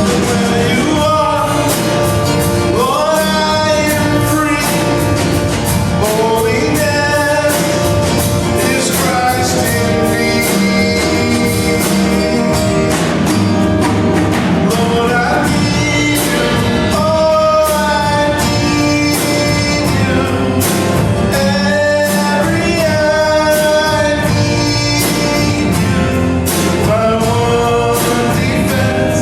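Gospel-style worship song: singing voices over a full band with a steady drum beat.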